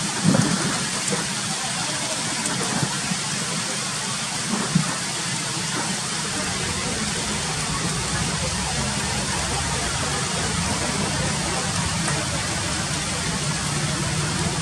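A steady, even hiss throughout, with a low steady hum joining about halfway through.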